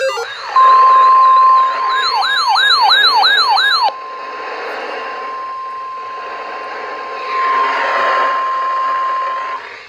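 NOAA Weather Radio's steady 1050 Hz warning alert tone sounds for about nine seconds, the signal that a warning broadcast follows. About a second and a half in, a siren-like wail rising and falling about two and a half times a second plays over it for about two seconds.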